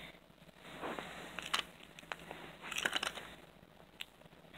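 Faint rustling with a few sharp clicks and knocks, the loudest about one and a half and three seconds in: handling noise of toys being moved about close to the microphone.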